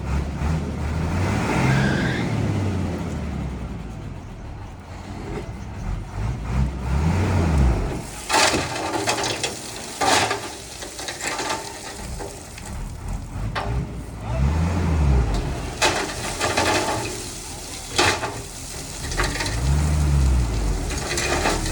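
Heavy diesel construction machine engine revving up and falling back about four times. Short bursts of hiss and clatter come in between the revs.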